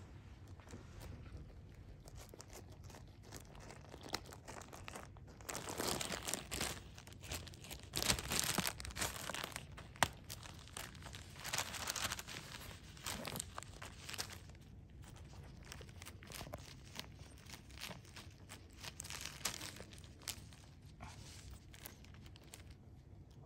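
A cat biting and clawing at a clear plastic zip-top bag of dry cat treats, crinkling and tearing the plastic in irregular bursts. It is loudest through the middle and quieter at the start and end.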